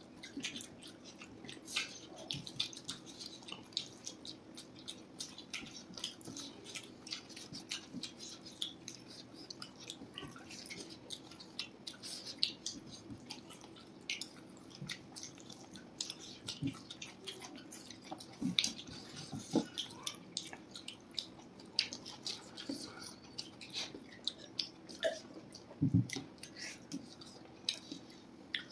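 Close-miked wet chewing and lip smacks of people eating veg fried rice and Manchurian gravy by hand, with many small clicks and squishes of fingers in the rice. A faint steady hum runs underneath, and a couple of dull knocks come near the end.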